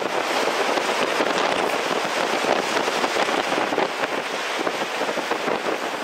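Hurricane-force storm wind buffeting the camera microphone: a loud, gusting, crackling rush that starts suddenly.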